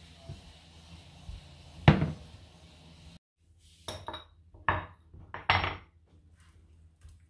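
Glass containers handled on a kitchen counter: one loud knock about two seconds in as the olive-oil bottle is set down, then a few shorter clinks and knocks as a small glass seasoning jar is picked up and opened.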